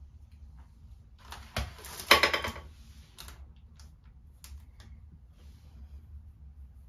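Handling noise: a short scraping, clattering burst about a second in, then a few faint clicks, as objects are moved about.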